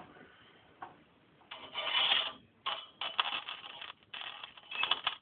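Homemade 555-timer-driven car ignition coil's high-voltage output arcing, about 15 kV, in three harsh buzzing bursts about a second long each, the first about a second and a half in.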